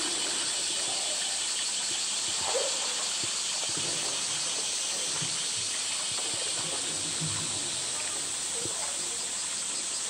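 Water sloshing and light splashing as a polar bear pushes and mouths a floating plastic barrel in its pool, with one brief knock about two and a half seconds in, over a steady high hiss.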